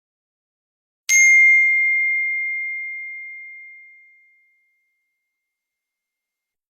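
A single bell-like ding about a second in: one clear ringing tone that fades away over about three seconds.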